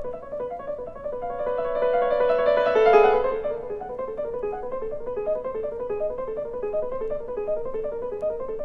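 Solo piano playing a rapid figure of repeated notes in the middle register. The figure swells to a loud climax about three seconds in, then falls back to a quieter, steady run of quick notes.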